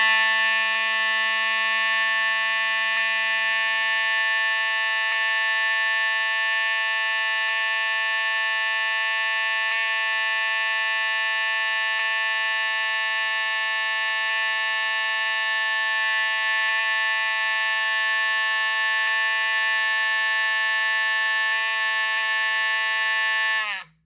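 Wheelock V7001-12 horn/strobe (12 V DC) sounding a steady, continuous horn blare, with only slight skipping as its strobe fires. The tone drops a little in pitch and cuts off just before the end.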